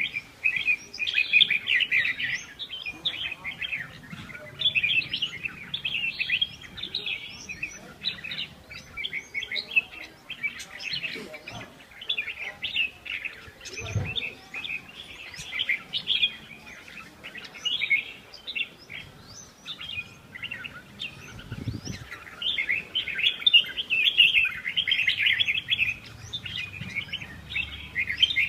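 Many small birds chirping and twittering rapidly and without a break, with two dull low thuds, about 14 and 22 seconds in.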